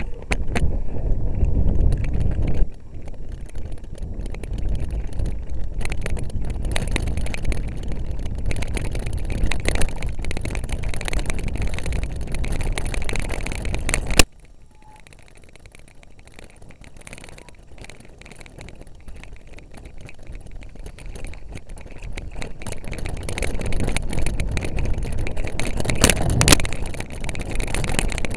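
Rushing noise and rattling knocks from a camera on a mountain bike riding fast over a rough, bumpy grass track. About halfway through there is a sharp knock, after which it goes much quieter for a few seconds before building up again.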